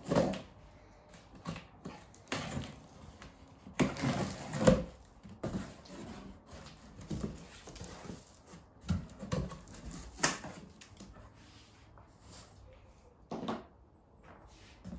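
A large cardboard shipping box being handled and opened by hand: irregular scrapes, rustles and knocks of cardboard as the flaps are pulled open and folded back.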